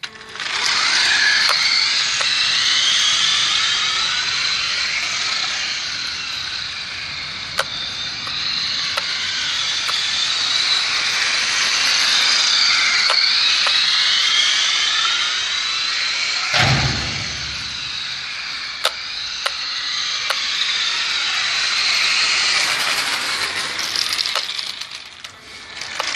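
Nikko Hurricane radio-controlled toy car running, its small electric motor and gears whining high, the pitch rising and falling as it speeds up and slows. There are scattered sharp clicks and one brief low thump about two-thirds of the way through.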